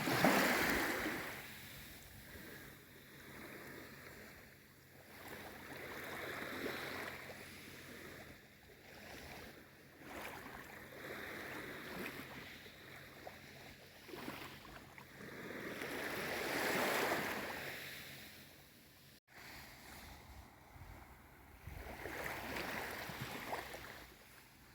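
Gentle sea waves washing in on a calm sea, a soft swell of noise rising and falling every five or six seconds, the strongest right at the start.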